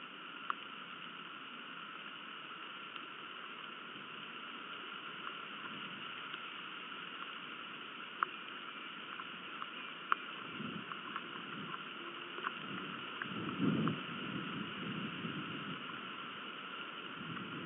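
Steady rain hiss on an outdoor nest-camera microphone, with scattered sharp drip ticks. Irregular low rumbles come in between about 10 and 15 seconds in.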